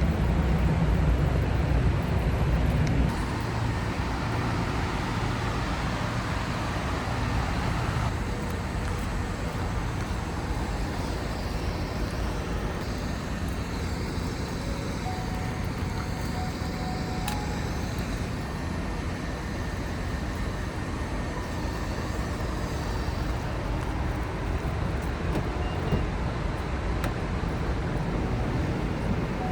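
Steady road and tyre noise of a minivan driving on a highway. A louder low rumble drops off about three seconds in.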